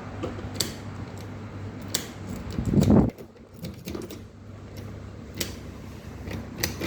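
Metal clicks and rattles of a cut key being worked in a Toyota ignition lock cylinder that turns a little and then sticks, with a louder scraping swell about three seconds in, over a steady low hum.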